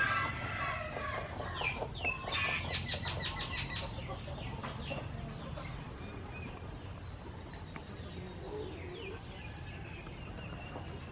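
Chickens clucking, with a quick run of short clucks a couple of seconds in, then fainter calls.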